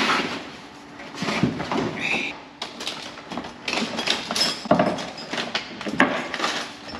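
Rummaging through a tool bag: hand tools knocking and clattering together in a run of irregular clicks and clunks.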